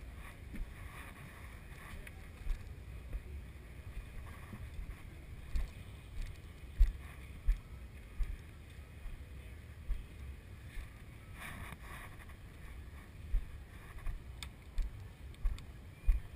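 Irregular low thumps and rumble on the camera's microphone, over a faint steady hiss.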